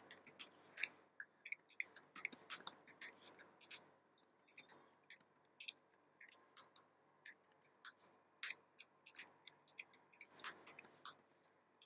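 Faint, irregular key clicks of typing on a computer keyboard, a few keystrokes a second, as an email address and then a password are entered. The typing stops about a second before the end.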